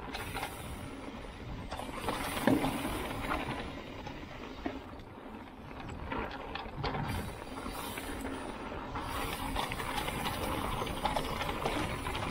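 Mountain bike riding down a dirt trail: tyres rolling and scrabbling over the ground, with the bike rattling and clattering over bumps and a sharp knock about two and a half seconds in.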